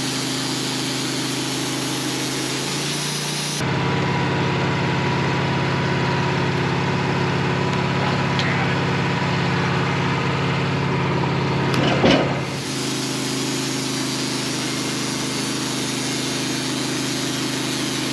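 Manual sawmill's engine running steadily. It gets louder from about three and a half seconds in, gives a brief loud rasp near twelve seconds, then drops back.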